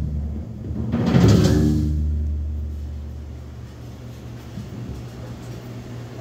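Bass-and-drums rock band ending a song: a final hit of drums, cymbal crash and electric bass about a second in, ringing out and fading over several seconds.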